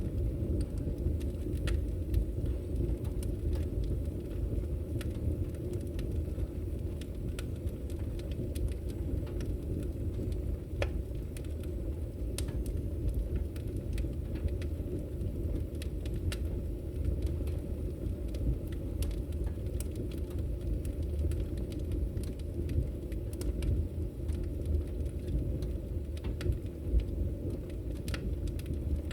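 Fire burning in a fireplace: a steady low rumble with scattered sharp crackles and pops.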